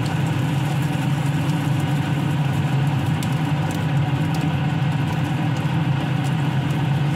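A kitchen fan running with a steady low hum, over frying in a nonstick pan. A few light ticks come from a nylon spatula turning fish balls and fish cakes against the pan.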